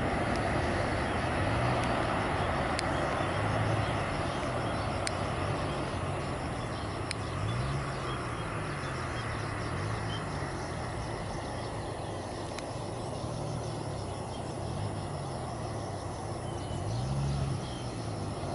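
Boeing 737 airliner's jet engines heard from a distance on approach and landing: a steady rushing jet noise, a little louder over the first few seconds, with a few faint ticks.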